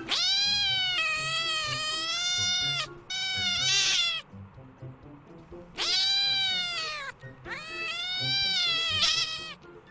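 A cat meowing: four long, drawn-out meows, each wavering in pitch, the second ending on a sharp rise. Soft background music under them.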